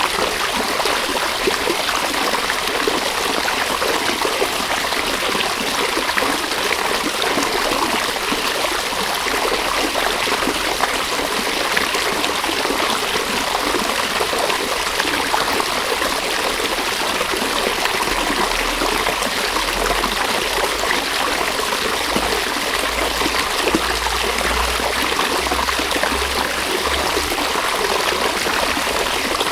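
River water running over rocks: a steady rush and gurgle without a break.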